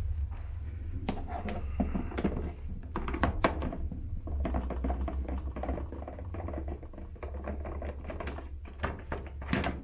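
Screws being backed out of an elliptical's plastic rear shroud with a Phillips screwdriver: a steady run of small clicks, ticks and scrapes, over a low steady hum.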